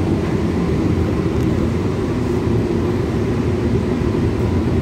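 Air-conditioned suburban electric local train running, a steady low rumble of wheels and running gear heard from inside the coach.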